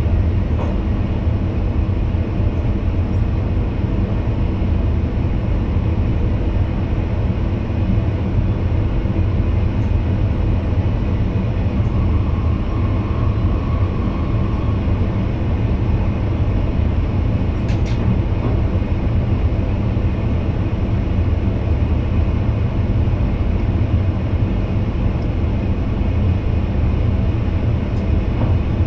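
Steady running rumble of an NS VIRM double-deck electric train, heard from inside the driver's cab. A faint whine rises over it for a few seconds around the middle, and there is one sharp click near the end.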